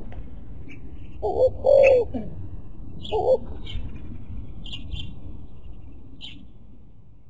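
Spotted dove cooing: a phrase of two or three low, hooting coos about a second in, then one more coo a little past the middle. Brief high chirps of small birds come in between.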